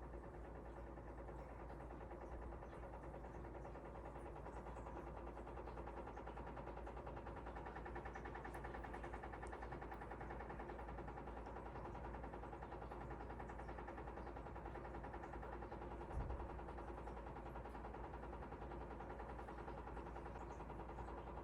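Steady low mechanical hum made of several even, level tones, with one small soft knock about sixteen seconds in.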